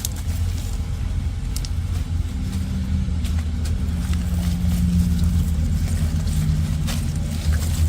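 An engine running steadily: a low rumble with a wavering hum above it, and a few light clicks.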